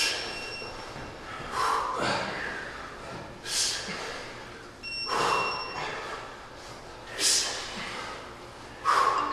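Hard, sharp breaths of a man working through kettlebell squats: about six forceful breaths, one roughly every second and a half to two seconds, in time with the reps.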